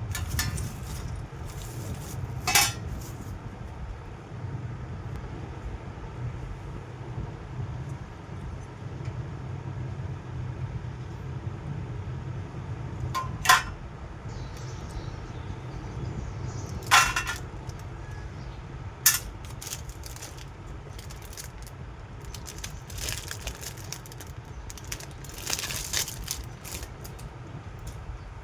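Scattered clinks and clicks of small hard objects being handled, about five sharp ones spread across the stretch, over a steady low hum.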